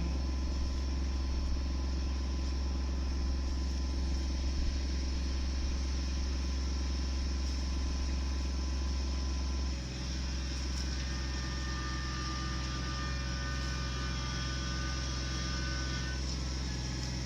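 Engine of a land-clearing machine running steadily with a low hum; about ten seconds in its note changes.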